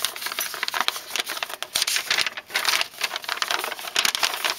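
A paper instruction sheet being unfolded and handled, crinkling and rustling in irregular bursts.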